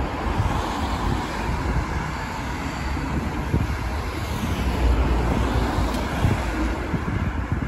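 Road traffic on a city street, heard while riding a bicycle, with a steady rush of passing cars. Wind buffets the phone's microphone underneath, giving a low, fluctuating rumble.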